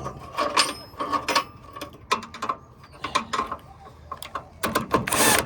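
Metal clicking and clanking of hand tools and parts being worked on the mower's idler pulley assembly, in irregular clusters of sharp knocks, with a louder scraping burst near the end.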